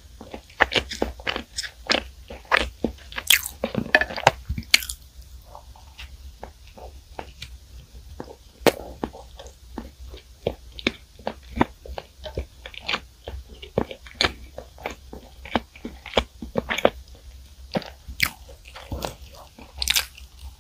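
Biting and chewing a crusty, streusel-topped bread, with a dense run of sharp, irregular crisp crunches.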